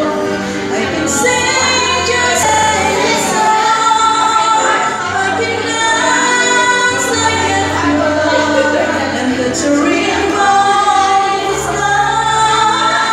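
A woman singing karaoke into a handheld microphone over a music backing track. She holds long notes that slide between pitches.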